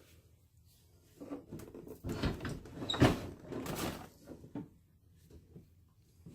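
Irregular clattering knocks and thumps of an old Singer treadle sewing machine and its cabinet being handled during maintenance, the loudest knock about three seconds in.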